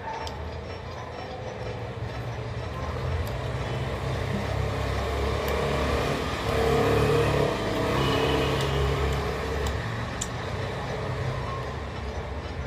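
A motor vehicle passing by: a low engine and road rumble that builds to its loudest about seven seconds in, then fades.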